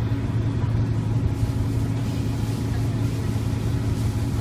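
Detroit Diesel Series 50 engine of a 1995 New Flyer D40LF city bus idling with a steady low hum, heard from inside the passenger cabin.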